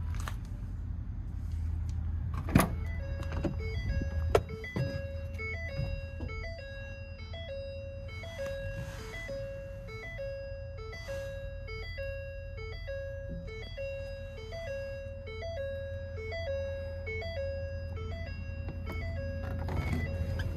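A simple electronic chime tune of short notes alternating between two pitches plays over the low, steady hum of a diesel engine running. Two sharp knocks come, one about two and a half seconds in and one just after four seconds.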